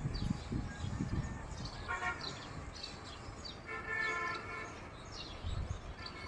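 A distant vehicle horn sounds twice, briefly about two seconds in and longer about four seconds in, while small birds chirp. There is a low rumble now and then.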